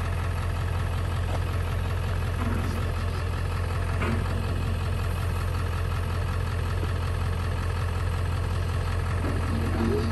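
Ford F-350 pickup truck engine idling with a steady, even low rumble.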